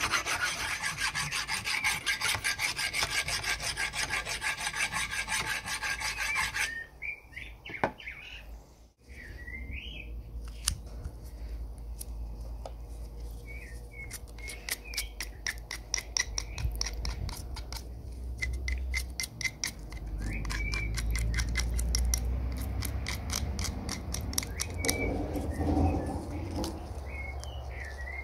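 Fast, rhythmic rasping strokes of hand abrading work on a part. They stop suddenly about seven seconds in. After that, lighter, evenly spaced scraping strokes go on, with short high chirps and a low hum beneath.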